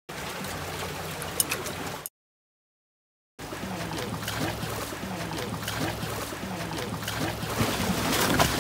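Water sloshing and lapping against a boat, with a steady low hum underneath. The sound cuts to dead silence for about a second after two seconds, then comes back.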